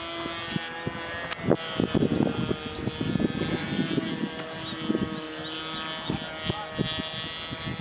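ASP .25 two-stroke nitro glow engine of a coroplast RC plane flying overhead, a steady distant buzz. Irregular low thumps come over it, most strongly between about 1.5 and 4 seconds in.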